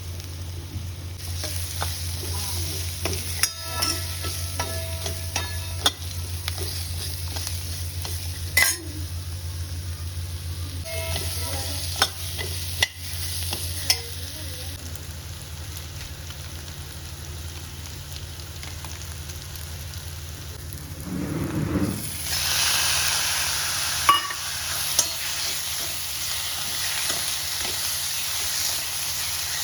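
Food frying in a pan while a metal spoon stirs and clinks against it, over a steady low hum. About 22 seconds in, the sizzle grows much louder, as if more goes into the hot pan.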